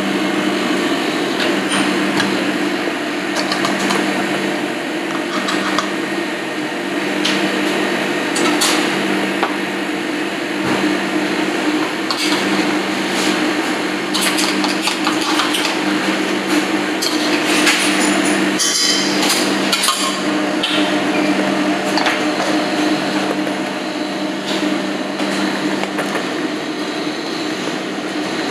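Kitchen utensil clatter: sharp knocks and scrapes as spice paste is tipped and scraped from a plastic blender chopper bowl into a steel pot, over a steady low hum.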